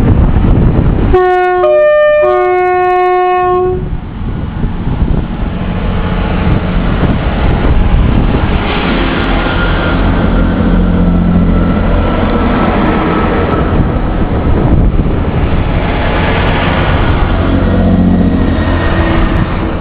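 Class 158 diesel multiple unit sounding its two-tone horn about a second in: a low note, a short higher one, then a longer low one. It then runs along the platform with its diesel engines and wheels making a steady loud rumble.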